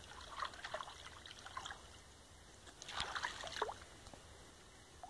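Faint water splashing and trickling at a riverbank's edge, in short uneven bursts with a denser splashy cluster about three seconds in.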